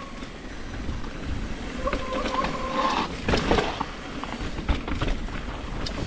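Mountain bike descending a rocky dirt trail: tyres rumbling and crunching over dirt, roots and rock slabs, with many sharp knocks and rattles from the bike. Louder and rougher a little past halfway, and a short steady tone is heard about two seconds in.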